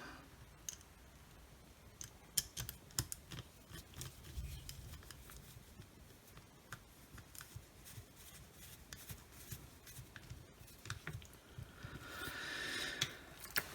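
Faint scattered clicks and light taps of wires and small plastic parts being handled and routed inside a circular saw's housing, with a soft rushing noise swelling near the end.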